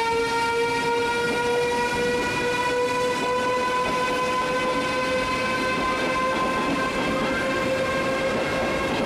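Siemens Velaro D (DB class 407 ICE) electric train accelerating away from the platform: a whine of several tones from its traction converters and motors, rising slowly in pitch as it gains speed, over the rumble of wheels on rails.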